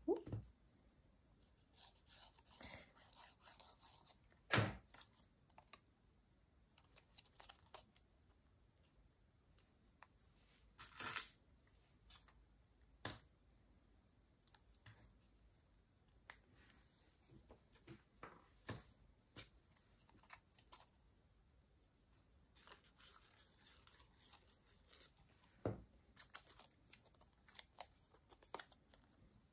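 Faint rustling and scraping of folded paper pieces being handled and pressed together, with a few sharp clicks and taps as small metal clips are put on.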